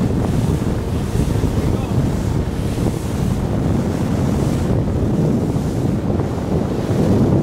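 Wind buffeting the microphone on a boat at sea, a steady low rumble mixed with the wash of the water.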